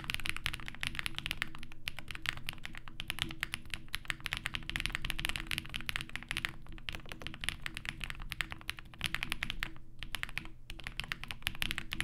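Fast, continuous typing on a Zoom65 mechanical keyboard with every foam installed (case, PCB, plate and PE foam), lubed Durock POM linear switches and GMK Redacted doubleshot ABS keycaps. There is a brief break in the keystrokes about ten seconds in.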